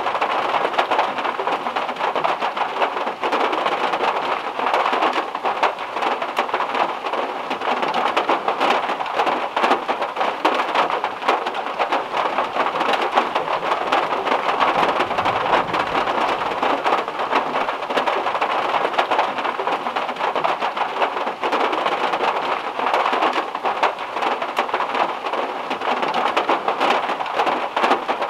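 Heavy rain falling steadily on a car's metal roof, a dense, even patter of countless drops.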